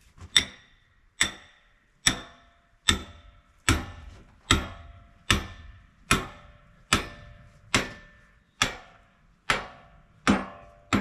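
A hammer striking in steady, even blows, about thirteen of them a little more than one a second, each with a short ring after it.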